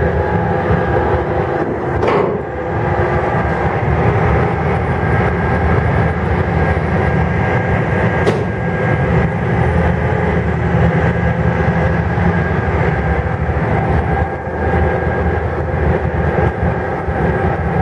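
Car ferry MV Loch Buie under way: her diesel engines drone steadily with a layered hum of engine tones. A brief click comes twice, about 2 and 8 seconds in.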